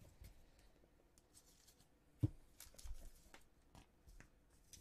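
Baseball trading cards being handled and sorted by hand: faint slides and light clicks, with one sharper tap a little over two seconds in.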